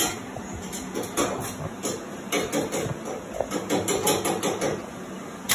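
Electric arc welding on a steel brace: the arc crackles with irregular sharp pops.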